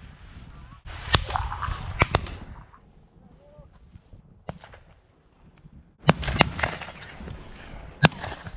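Shotgun shots: sharp reports about a second in and twice more around two seconds, then another group of shots from about six seconds in, the last one near the end.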